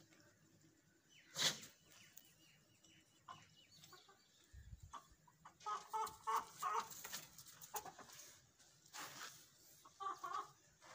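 Chickens clucking in short repeated notes, in a run about six seconds in and again near the end, with a single sharp knock about a second and a half in.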